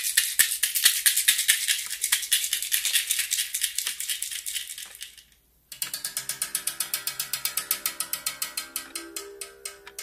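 A percussion rattle shaken fast and evenly, fading out about five seconds in. After a brief silence, rattling strokes resume at about five a second over a steady held low tone.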